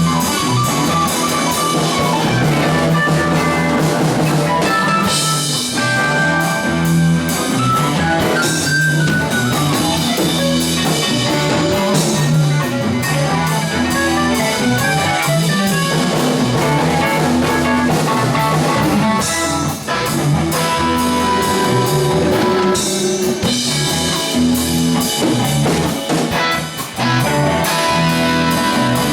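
Band playing live: guitar over a drum kit.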